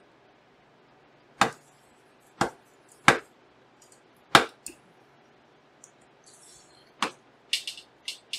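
Sharp, irregular clicks and knocks of a screwdriver and small metal parts as screws are driven into a graphics card during reassembly, about ten in all, several in quick succession near the end.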